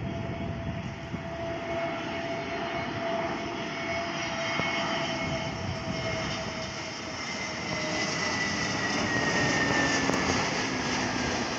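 Jet engines of an AirAsia Airbus A320-family airliner on final approach: a steady jet rumble with a whine that slides slowly lower in pitch. The sound grows louder toward the end as the plane comes closer.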